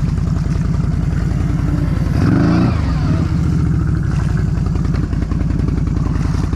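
2022 Can-Am Outlander 650 XMR's V-twin engine, fitted with an RJWC Krossflow exhaust, running under throttle as the ATV pushes through mud. About two seconds in it gets louder in a brief burst of revs whose pitch then drops.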